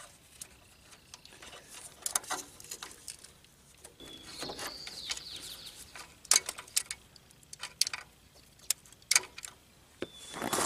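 Scattered clicks and knocks as the Onan generator's old voltage regulator is worked loose by hand from its plastic wiring-harness plug. A high chirping call sounds a little after four seconds and again near the end.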